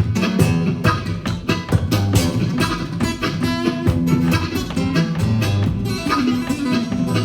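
Live blues music, an instrumental break with no singing: guitar picked in quick, percussive strokes over sustained low notes.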